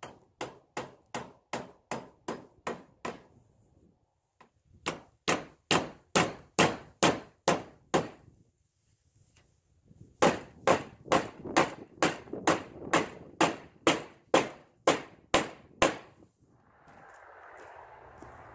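Claw hammer driving roofing nails through steel siding trim: three runs of quick, even blows, three to four a second, the second and third runs louder than the first.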